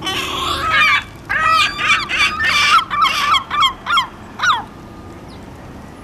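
A gull giving its long call: a loud drawn-out opening note, then a quick run of about eight yelping notes, each falling in pitch, that space out and stop about four and a half seconds in.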